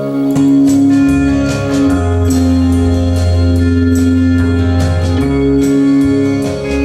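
Music: sustained organ-like keyboard chords over a bass line, with a light, steady percussive beat.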